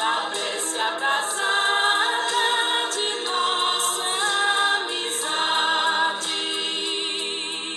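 Background music with choral singing, several voices held together.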